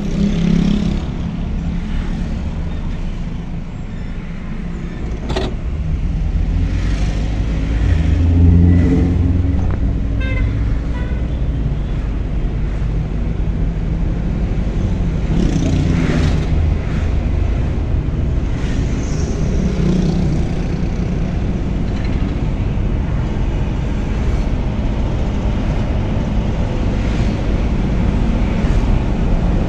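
Car driving in traffic heard from inside the cabin: a steady low rumble of engine and tyre road noise. A single sharp click comes about five seconds in.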